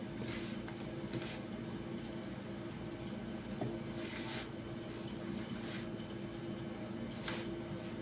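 Hands squeezing and rubbing a crumbly flour-and-sugar mixture in a plastic basin, giving about five soft, gritty rustles at irregular intervals over a steady low hum.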